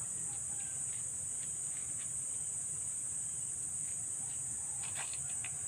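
Steady high-pitched insect chorus over a low steady rumble, with a few faint clicks about five seconds in.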